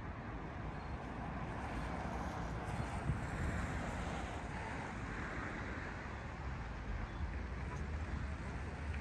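City street ambience: a steady hum of traffic, with a low rumble of wind on the microphone and a brief thump about three seconds in.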